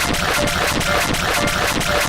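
Rhythmic music with a fast, even beat.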